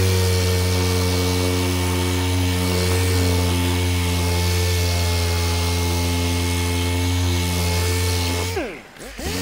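Electric sander with an 80-grit disc running steadily while sanding the edge of a plastic wheel trim. Near the end the motor winds down briefly and spins back up.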